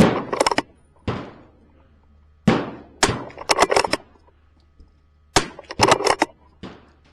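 Semi-automatic .22 LR rifle firing a string of shots with uneven gaps: single shots about a second apart at first, then quick runs of three or four shots in under a second. Each crack is sharp, with a short echo after it.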